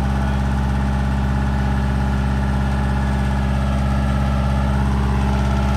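1994 Kubota L4200 tractor's diesel engine running steadily, with a backhoe attached.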